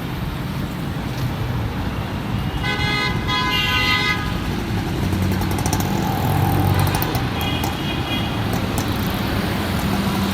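Road traffic running, with a car horn honking once for about a second and a half, about three seconds in, and a fainter tone near the end.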